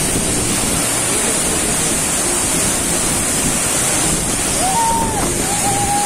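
Kanchenjunga Falls, a large waterfall, pouring onto rocks close by: a loud, steady rush of falling water.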